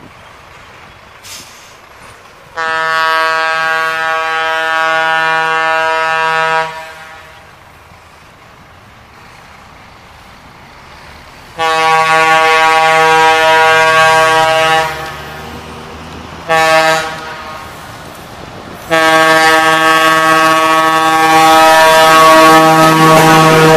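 Diesel locomotive's multi-tone air horn sounding four blasts: long, long, short, then a final long blast that holds to the end. This is the long-long-short-long warning blown for a level crossing.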